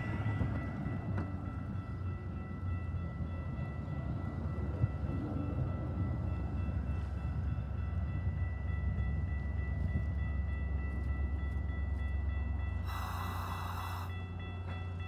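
Metra bilevel commuter cars rolling slowly past and coming to a stop: a steady low rumble of wheels on rail with a thin, steady high-pitched squeal over it, and a short burst of noise about thirteen seconds in.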